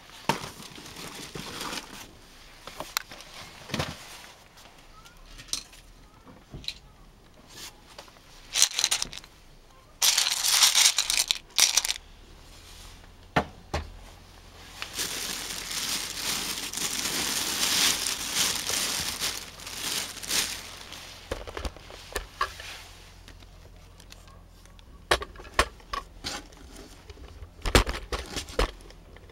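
Plastic bag rustling as it is handled and pulled open inside a cardboard box, in two longer stretches near the middle, with scattered sharp knocks and clicks from moulds and tins being moved.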